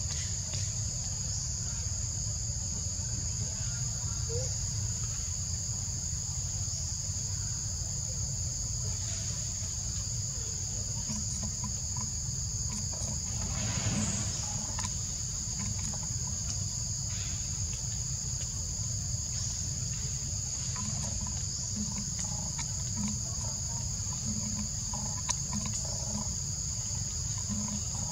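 Steady, high-pitched insect chorus, a continuous buzz in two pitches, over a low background rumble, with a brief swell of rustling noise about halfway through.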